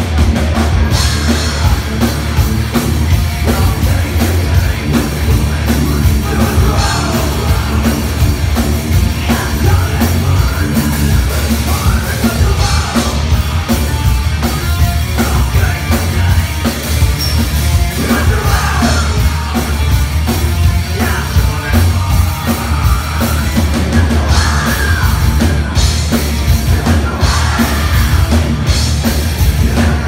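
Heavy metal band playing live: distorted guitars, bass and drums, with the vocalist yelling the lyrics into the microphone.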